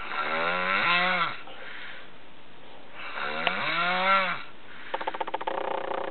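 Snoring: two long snores about three seconds apart, each with a pitch that rises and then falls. About five seconds in, a buzzing, fluttering snore begins.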